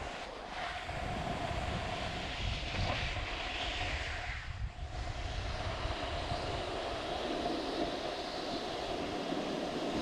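Steady rushing noise of wind on the microphone and snow sliding under a rider on a groomed slope, with a low rumble and a faint steady hum; a brighter hiss swells about three to four seconds in, then eases briefly near the middle.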